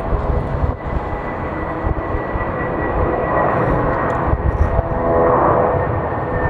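Jet airliner's engines running close by, a loud steady roar and rumble with a high whine that drops slightly in pitch.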